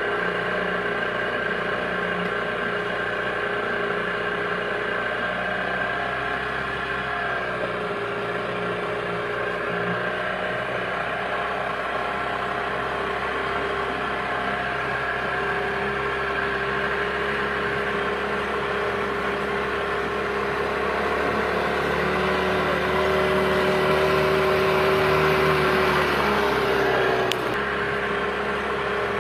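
A boat's motor running steadily under way, its drone shifting pitch a few times and growing a little louder about three quarters of the way through.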